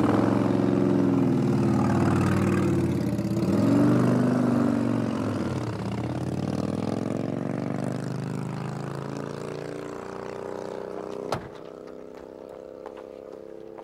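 A car engine runs loudly and then fades as the vehicle goes by, its pitch falling as it passes. Near the end there is a single sharp click.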